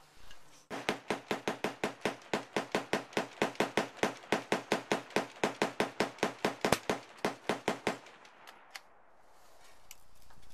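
Rapid string of gunshots, evenly spaced at about five to six a second, lasting about seven seconds and stopping abruptly, with a couple of faint single clicks after.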